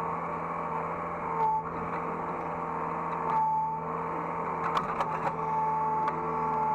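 Hydraulic excavator running, heard from the operator's cab: a steady engine drone with a higher whine that comes and goes, and a few sharp knocks and rattles about five seconds in.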